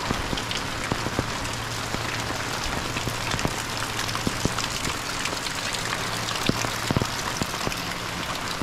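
Heavy rain falling steadily: a dense, even hiss with scattered sharp taps of single drops.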